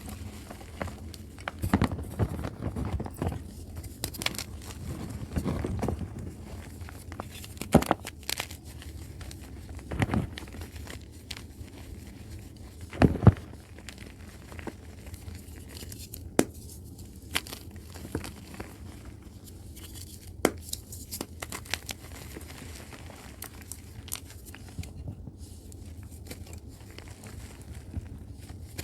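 Blocks of dusty reformed chalk and gym chalk crumbling and crunching as they are crushed, in irregular crisp cracks and crackles. The loudest crunch comes about thirteen seconds in.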